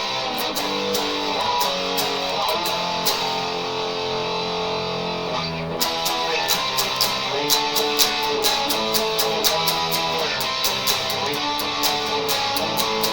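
Vicers HSS Strat-style electric guitar playing chords, picked and strummed with ringing sustained notes. The playing breaks off briefly a little past halfway, then carries on.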